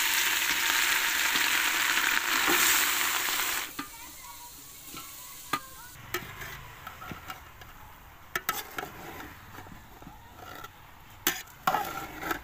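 Grated carrots frying in hot ghee in a large metal pot: a loud sizzle that dies down suddenly after about four seconds. After that, a metal spatula scrapes and knocks against the pot now and then as the carrots are stirred.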